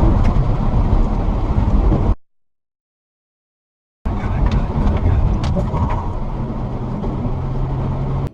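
Car interior driving noise, a heavy low rumble of tyres on the road and the engine, heard inside the cabin. The sound drops out completely for about two seconds partway through, then returns, with a steady hum coming in near the end.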